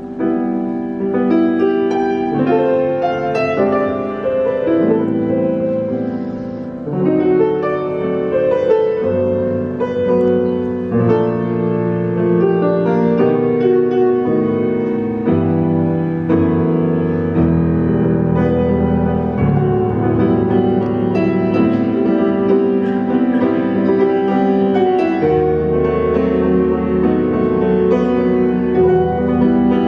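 Solo grand piano playing an improvisation: chords and running notes over deep bass notes that are held for several seconds at a time.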